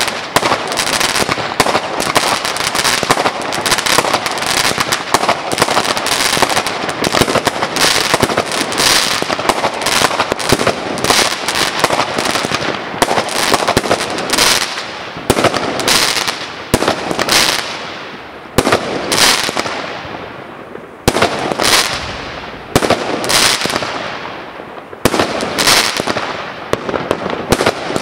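Aerial fireworks firing and bursting. For about the first half the bangs come so fast they run together; after that they thin out to separate bursts about a second apart, with short lulls between.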